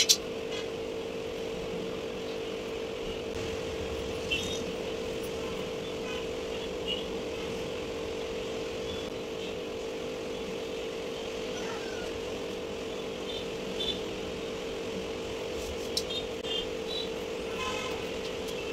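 A steady background hum, with a few light clicks and taps as stiff white craft-board panels and a small plastic glue bottle are handled and pressed together.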